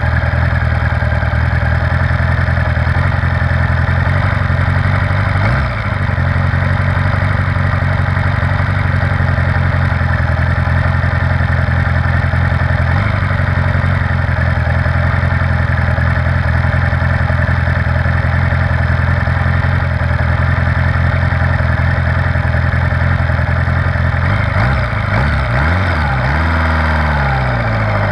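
1978 Honda GoldWing's flat-four engine idling steadily, then rising and falling in pitch a few seconds before the end as the bike moves off.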